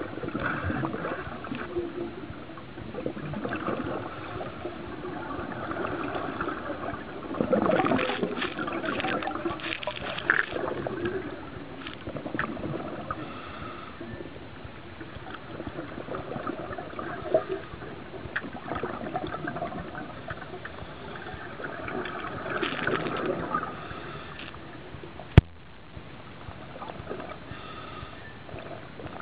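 Underwater bubbling and gurgling from a scuba diver's breathing: surges of exhaled bubbles come and go irregularly. A single sharp click sounds near the end.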